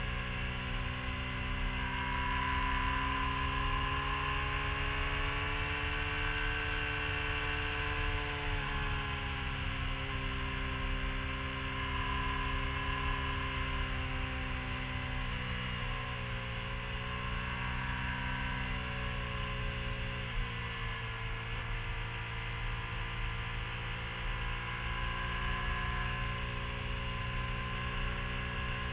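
Sport motorcycle engine running at speed on a twisting road, its pitch rising and falling with the throttle and stepping down sharply about a third of the way in, again around halfway and again about two-thirds in, over a steady low wind rumble on the microphone.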